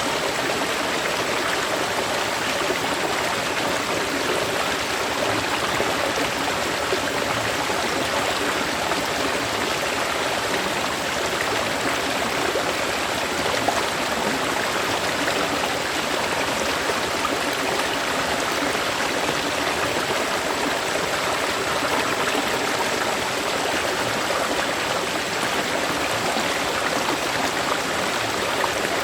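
Flowing river water rushing steadily and evenly, with no change in level.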